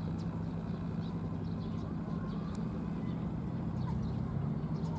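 A steady low engine hum, with faint short high chirps scattered over it.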